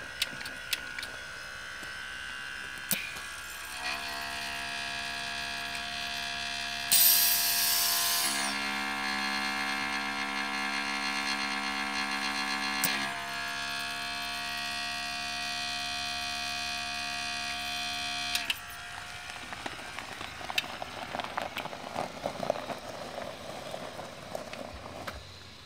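Small electric air compressor of the trike's air-ride suspension humming steadily, its pitch stepping a couple of times, with a loud hiss of air for about a second around seven seconds in. The motor stops about eighteen seconds in, followed by tyres crunching over gravel.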